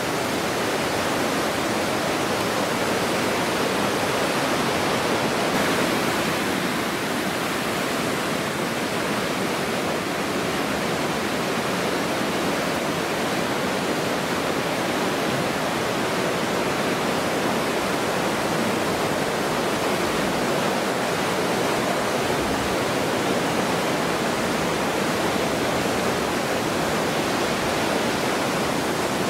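Fast mountain stream rushing over rocks: a steady, even wash of water noise.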